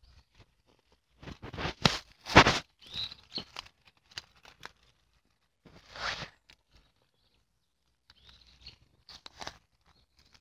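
Dry leaves and grass crinkling and crunching in the hands as a tinder bundle is folded and squeezed around a bow-drill ember, in short bursts, the loudest about two seconds in.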